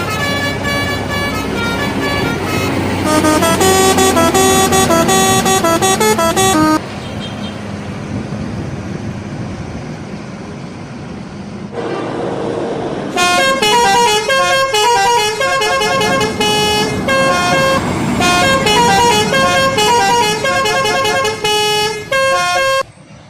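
Indonesian bus 'telolet' multi-tone musical horn playing quick runs of notes that step up and down. Two bouts are separated by several seconds of engine and traffic noise, and the second bout cuts off abruptly near the end.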